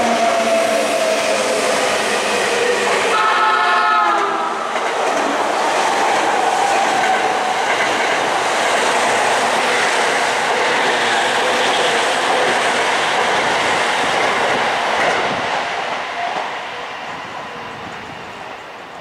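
Sotetsu 10000 series ten-car electric train passing through the station without stopping. A single horn blast of about a second sounds about three seconds in, then the cars rush and clatter past close by, and the noise fades away over the last few seconds. At the start, a train's electric motor whine falls in pitch.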